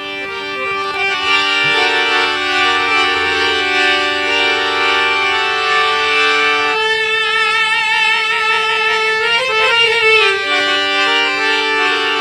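Harmonium playing an instrumental passage of held, reedy notes that move step by step through a devotional melody. From about seven seconds in, a second melodic line with heavy vibrato plays over it for a few seconds.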